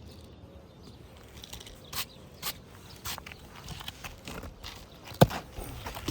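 Nails being driven into a newly installed asphalt roof shingle: a few light taps, then one loud sharp strike about five seconds in.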